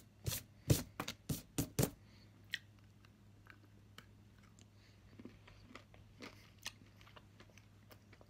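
A thick milk chocolate bar with caramel and sea salt snapping and crunching as a piece is bitten into: about six sharp snaps in the first two seconds, then quieter scattered crunches of chewing.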